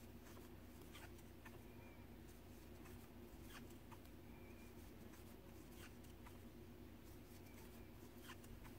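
Near silence: faint, irregular scratchy ticks of a crochet hook drawing yarn through stitches, about one a second, over a low steady hum.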